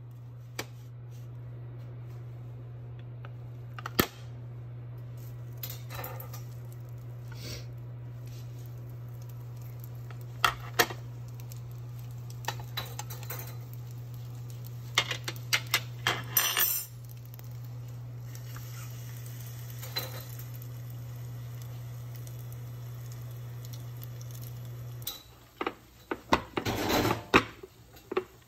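Dishes and cutlery clinking and clattering in scattered knocks, busiest near the end, over a steady low hum that cuts off about 25 seconds in.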